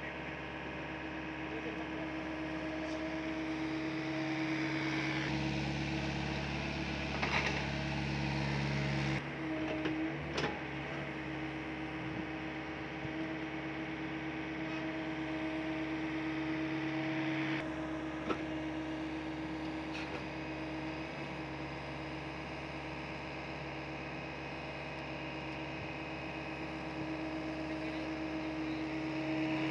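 SDLG mini excavator's diesel engine running steadily while it digs, its note changing a few times, with a few short knocks along the way.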